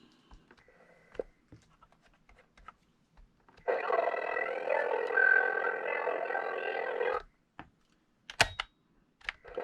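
Sony WA-55 cassette recorder playing a tape through its small built-in speaker for about three and a half seconds. The playback starts and stops abruptly, and a few sharp clicks of its keys follow.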